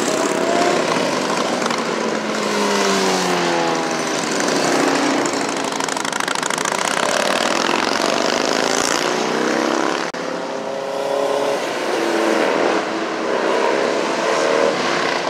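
Cars and motorcycles driving past one after another, their engines sliding in pitch as each goes by; a touring motorcycle passes close near the end.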